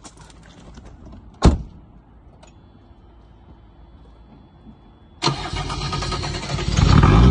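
A car door shuts about a second and a half in. Near the end, the 1993 Mercedes 300D's OM602 turbocharged inline-five diesel cranks and starts abruptly, running louder within a couple of seconds.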